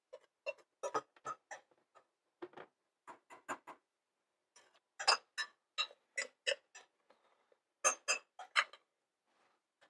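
Metal spoon clicking and clinking against a glass mixing bowl while scooping whipped egg white, in irregular clusters of short taps.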